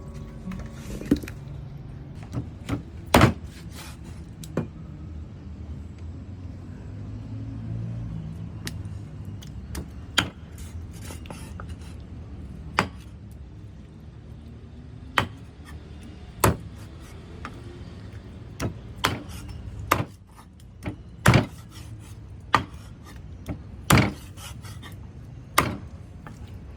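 Knife chopping on a wooden cutting board: single sharp strikes at irregular intervals of one to a few seconds, some in quick runs of two or three.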